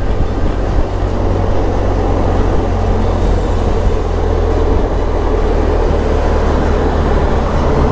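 Steady wind rush buffeting the microphone of a motorcyclist riding a BMW R1250 GS Adventure at expressway speed in strong wind, with the bike's engine and road noise blended underneath.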